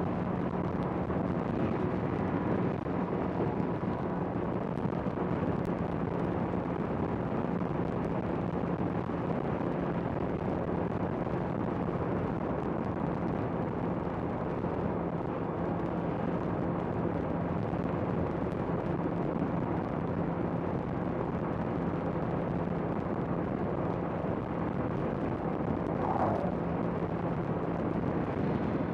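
Honda CBR650R inline-four engine running steadily at a cruise, a constant hum under a thick rush of wind and road noise on the rider's microphone.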